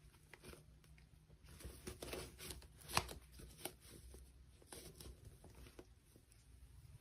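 Faint handling sounds: soft rustling and small clicks as hands work with toys and packaging, with one sharper click about three seconds in.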